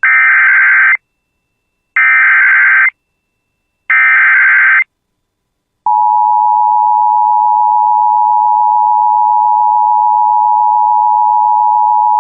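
Emergency Alert System tones: three loud, short bursts of SAME header data, each about a second long and spaced about two seconds apart. Then, about six seconds in, the steady two-tone EAS attention signal starts suddenly and holds. Together they announce an emergency alert broadcast.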